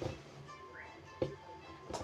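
Quiet background music with held notes, with a light tap about a second in and another near the end.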